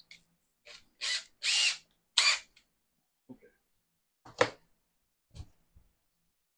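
Power drill run in three short trigger bursts just after a bit has been fitted, followed by a few light handling clicks.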